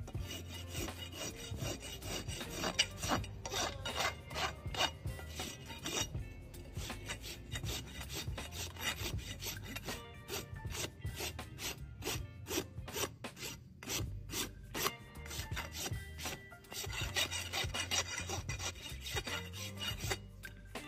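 A farrier's hoof rasp filing a horse's hoof wall in repeated back-and-forth scraping strokes, with a few short breaks.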